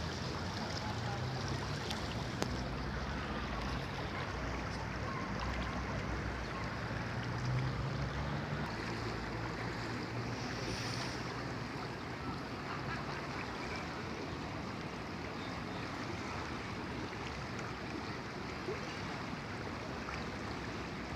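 Steady rushing of the Kolubara river's flowing water, with a low rumble underneath during the first half.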